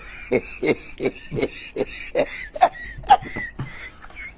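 Rhythmic mouth-made beats, about three a second, over a steady high whine.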